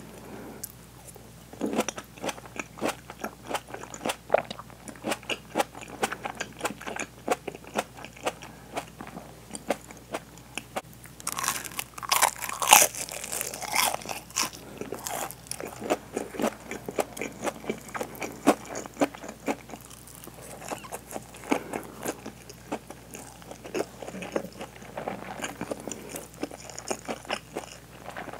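Close-miked biting and chewing of deep-fried hanpen fish cake with a crisp fried coating, a run of crunches and wet chews. The loudest, crunchiest bite comes about twelve seconds in.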